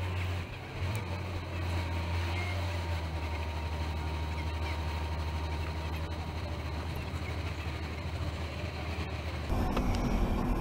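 Car engine idling, a steady low hum heard from inside the car in slow traffic. About nine and a half seconds in it gives way suddenly to the louder, broader rush of the car driving at speed.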